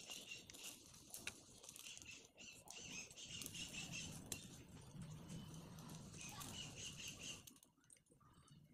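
Faint crackling of burning matchsticks and cardboard, with sharp pops scattered through it. A high chirping runs in the background and fades out near the end.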